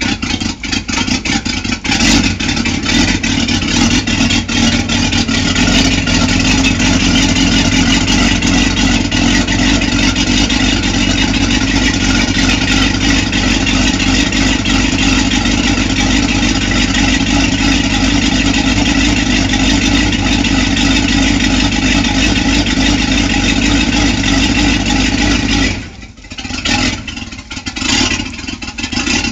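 Boat's V8 sterndrive engine running loud and steady on its trailer, exhausting through twin transom pipes with cooling water fed by a garden hose, on its first run after winter layup. About 26 seconds in the sound drops sharply and becomes uneven.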